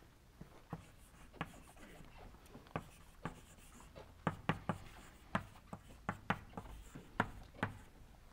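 Chalk writing on a blackboard: an irregular string of sharp taps and short strokes, sparse at first and coming thick and fast over the second half.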